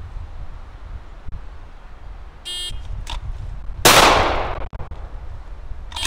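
Shot timer beeps to start a draw, and about a second and a half later a single 9mm shot from a Glock 19 pistol goes off loud and sharp, ringing out as it fades. Another short beep comes near the end.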